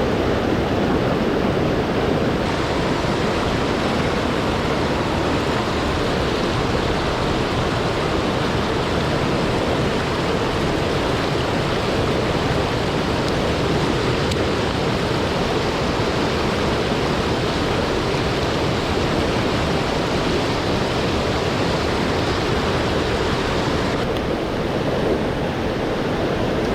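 Steady rush of water from a swollen mountain stream, an even noise with no pauses.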